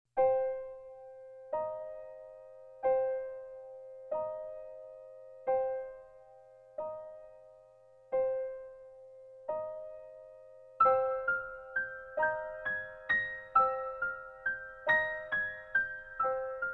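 Background keyboard music with a piano sound: slow chords struck about every second and a half, each left to ring out, then a quicker melody of notes joins about eleven seconds in.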